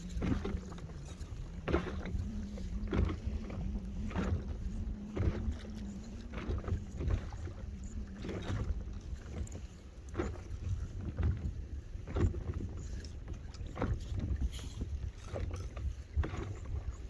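Water splashing in a regular rhythm, one short splash about every second or so, over a steady rumble of wind on the microphone, with a faint steady hum during the first half.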